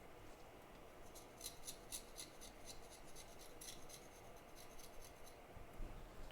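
Faint, quick scraping strokes of a small blade on a circuit board chip, about four a second, starting about a second in and stopping near the end.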